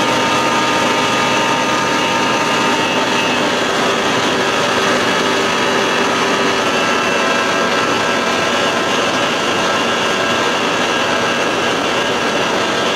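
1992 Johnson 60 hp two-stroke outboard, fitted with 70 hp carburetors, running steadily at full throttle with the boat on plane during a speed run.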